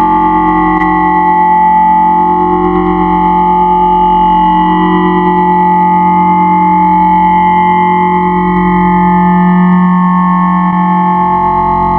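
A huge number of copies of Pluto the cartoon dog's voice clip layered on top of one another, merging into a loud, steady, distorted drone.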